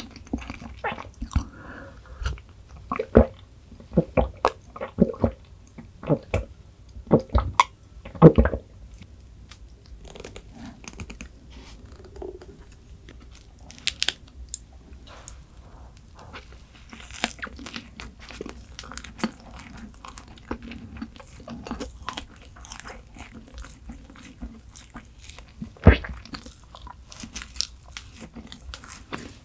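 Close-miked eating: crisp crunching bites followed by chewing, the crunches thickest and loudest in the first several seconds, with one more sharp crunch well after the middle.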